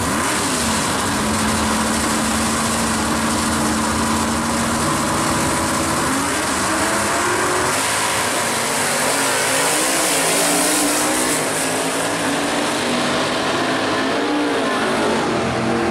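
Drag cars' engines, a 1969 Chevelle among them, running loudly at the starting line, then launched at full throttle down the strip partway through, the engine pitch sweeping up and down as they accelerate away.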